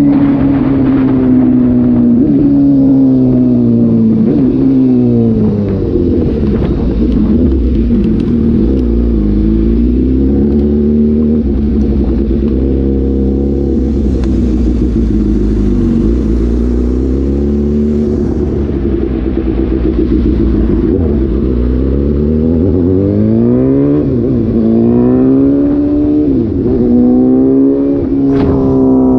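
Suzuki GSX-S750's inline-four engine through an SC-Project slip-on exhaust with the dB killer removed, running loud under way. Its pitch rises and falls several times as it is revved through the gears, steadier in the middle stretch.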